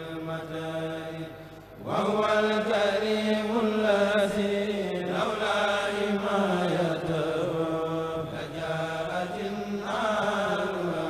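A kourel of men's voices chanting a Mouride khassida together without instruments, in long drawn-out melodic lines. The chant thins out briefly, and a new phrase begins loudly about two seconds in, with another starting near the end.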